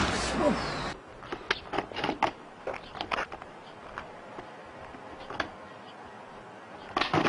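A loud rushing noise that cuts off about a second in, then a quieter stretch of irregular, sharp light clicks and taps.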